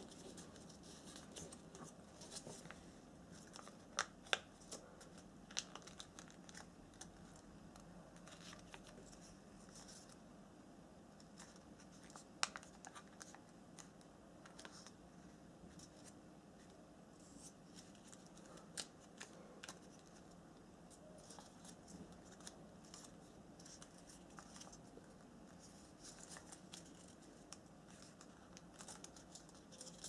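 Origami paper being folded and creased by hand: faint rustling and scraping of the paper, with scattered crisp crackles as folds are pressed. The sharpest crackles come around four seconds in and again around twelve seconds in.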